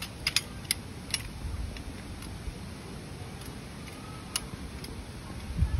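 A few sharp clicks or taps, several in the first second and another about four seconds in, over a steady low rumble.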